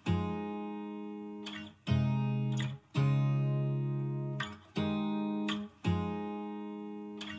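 Background music: an acoustic guitar strumming chords, each chord ringing out and fading before the next one is struck, about every one to two seconds.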